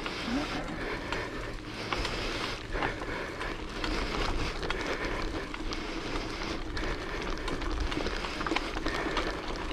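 Bicycle riding noise: a steady rushing sound with many scattered clicks and rattles.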